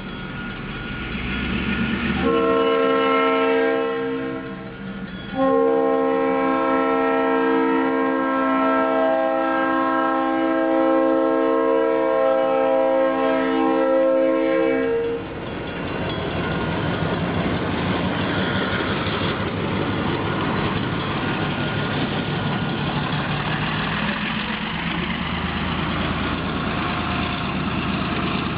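Diesel freight locomotive sounding its multi-chime air horn for a road crossing: a short blast, then a long one held for about ten seconds. After the horn stops, the locomotive's engine runs and the train's cars roll past over the crossing in a steady rumble.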